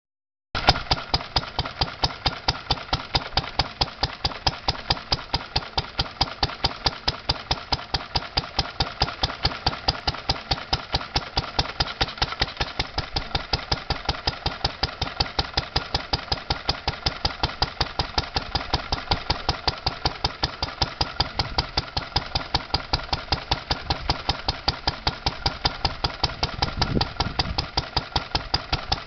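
Lister D single-cylinder stationary engine running steadily at its governed speed: a rhythmic thumping, one beat per firing stroke, evenly spaced.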